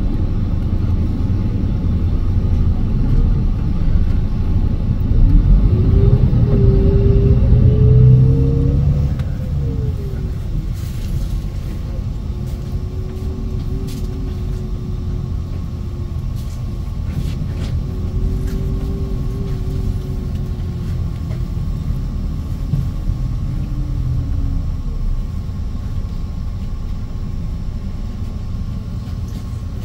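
Low rumble of a moving city bus, with a motor whine that rises about five seconds in, drops back and holds steady, and a few faint rattles.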